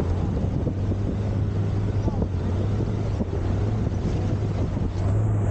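A river longboat's outboard motor running steadily, its low hum stepping up slightly about a second in, over rushing river water and wind buffeting the microphone.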